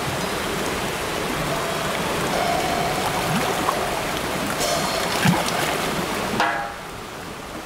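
Recorded creek water flowing, a dense rushing noise from a soundscape playback. It drops away about six and a half seconds in.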